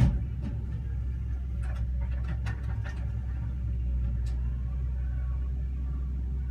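Atlas 1302 wheel excavator's diesel engine running steadily, with a sharp knock at the very start and a few lighter clanks a couple of seconds in and again near the middle.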